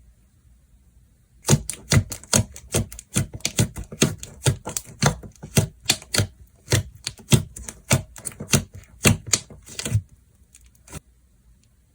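Slime being played with by hand, giving a quick run of sharp clicks and pops, about three or four a second, starting about a second and a half in and stopping near ten seconds, with one last click soon after.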